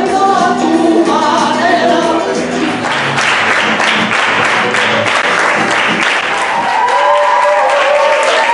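A group singing a song in Spanish, which ends about two and a half seconds in; the audience then applauds, with a few held voices near the end.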